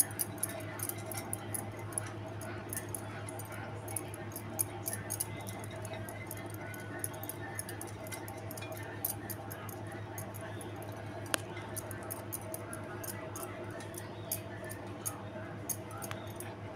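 A silicone basting brush dabs and rubs oil into the cavities of a nonstick Cello appe pan, making faint, rapid little ticks and rubs over a steady low hum.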